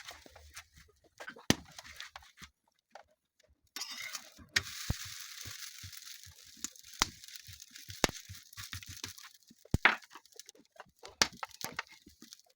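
Chapati frying in oil on a hot pan over a wood fire: a sizzling hiss starts suddenly about four seconds in and dies away after about six seconds. Sharp clicks and knocks are scattered throughout.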